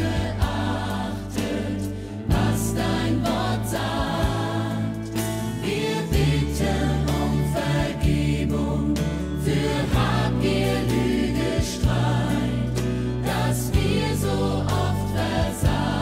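Hymn sung by several voices with instrumental accompaniment: held bass notes under the melody and a regular beat.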